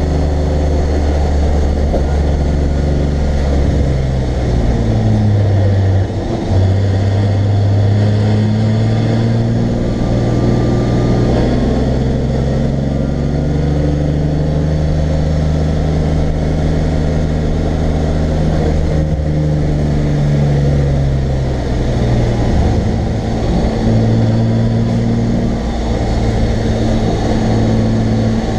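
In-car sound of a race car's engine running at low revs on light throttle, its pitch drifting gently up and down with speed over steady road and wind noise. Near the end the revs drop as the car slows off the throttle.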